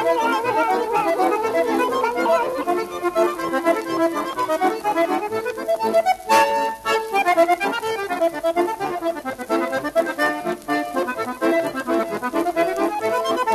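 Instrumental background music, a quick-moving melody over a steady accompaniment.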